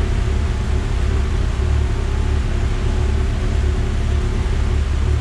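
Mitsubishi Evo X's turbocharged 4B11T four-cylinder running at a steady engine speed on a chassis dyno, a loud even drone with no rise or fall in pitch.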